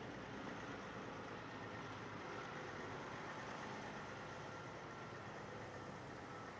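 Semi truck's diesel engine running steadily at low speed as the truck pulls slowly past.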